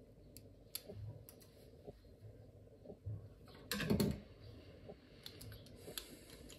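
Light plastic clicks and taps as the parts of a Knog PWR bike light are handled and fitted together, with a louder clatter about four seconds in.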